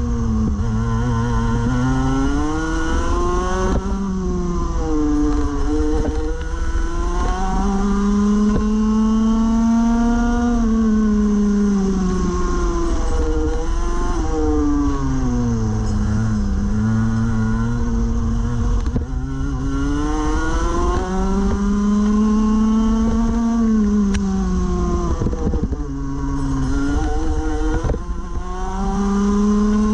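Rotax Max Evo Senior 125cc single-cylinder two-stroke kart engine at racing speed, heard on board. Its pitch climbs steadily as the kart accelerates, then drops quickly when the driver lifts for the corners, about five times over.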